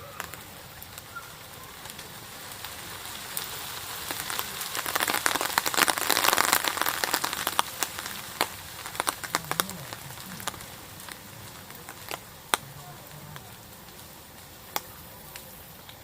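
Wood fire crackling with scattered sharp snaps. About five seconds in the crackle thickens into a dense hissing rush, then dies back to a few snaps by ten seconds.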